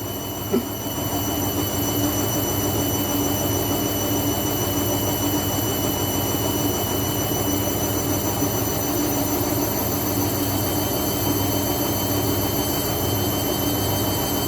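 Washing machine running with a steady mechanical drone, a low hum that swells and fades, and a thin high whine over it; the machine is faulty and had been burning.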